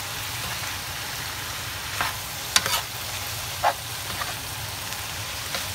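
Bean sprouts, carrot and minced pork sizzling steadily in a frying pan as a metal spatula stirs them, with a few sharp scrapes and clatters of the spatula against the pan midway.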